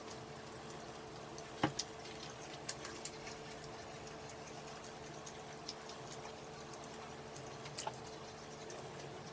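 Quiet eating of chicken McNuggets: scattered sharp clicks of chewing and handling food, the loudest about one and a half seconds in, over a faint steady hum.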